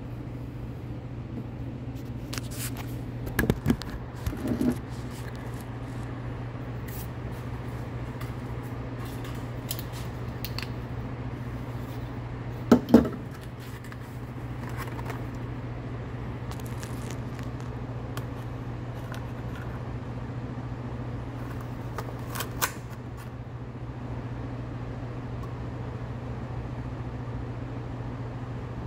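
Hard clear plastic package of cannon fuse being handled and turned, giving a few sharp clicks and knocks, over a steady low hum.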